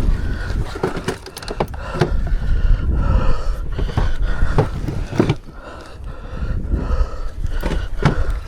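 Low rumble of wind buffeting the microphone, with a series of irregular knocks and thumps.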